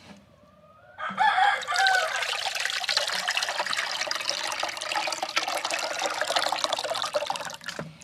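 Water pouring from a garden hose wand into a ceramic water dish, splashing as the bowl fills. It starts about a second in and stops shortly before the end.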